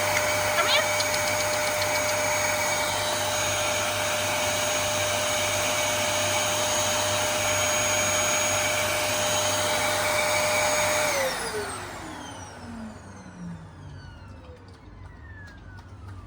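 Vacuum cleaner running steadily with a high motor whine, then switched off about eleven seconds in, its whine falling in pitch as the motor winds down.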